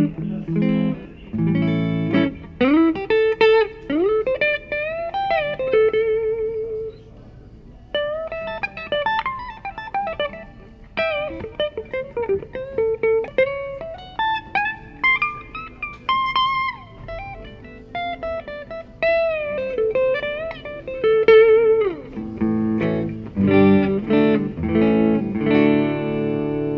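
Gibson Les Paul '50s Tribute T electric guitar with 490R and 498T humbuckers, played clean through a Blackstar tube amp. A few chords open, then single-note lead lines with string bends and vibrato, then chords again near the end.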